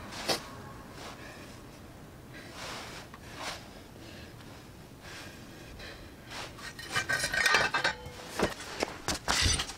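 Gloved hands handling a motorcycle tyre seated in a homemade metal wheel chock: light knocks, clinks and rubbing, busier and louder in the last three seconds or so.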